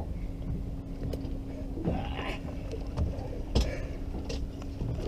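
Boat engine idling with a steady hum over a low rumble, with a few faint knocks on the boat.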